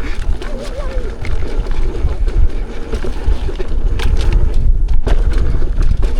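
Wind rumbling on the microphone while riding fast down a rough dirt trail, with scattered knocks and rattles from the bumps; one sharper knock about four seconds in.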